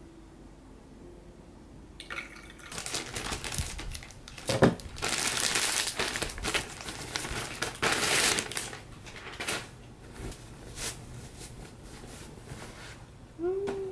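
Fabric rustling and swishing in repeated strokes as a large white cloth is shaken out and handled, with a single sharp knock about four and a half seconds in.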